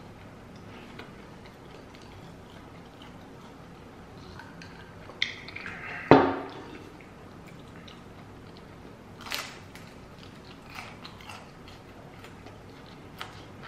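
Eating sounds of a crispy deep-fried vegetable egg roll being bitten and chewed close to the microphone. The loudest crunch comes about six seconds in, followed by a few softer crunches.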